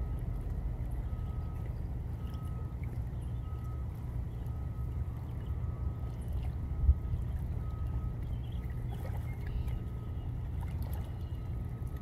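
Outdoor riverbank ambience: a steady low rumble with a faint high peep repeating about once a second. A single low thump comes about seven seconds in.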